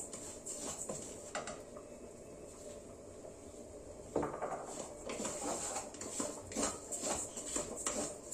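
Wooden spoon scraping a bowl and then stirring bulgur into a pot of toasting vermicelli: repeated clicks and scrapes against the bowl and pot, busier and louder from about four seconds in.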